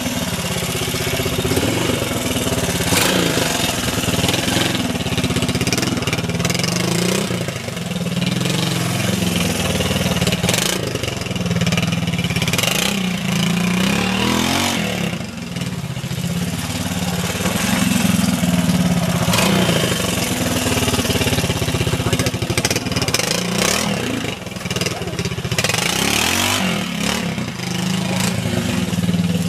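Honda 250 trials motorcycle engine revving up and down in repeated blips of throttle as the bike picks its way over rocks and roots.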